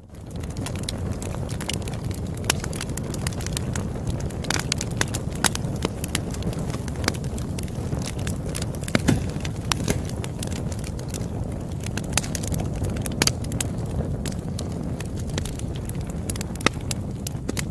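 Campfire crackling: a steady low rumble of burning with irregular sharp pops and snaps, a few of them louder.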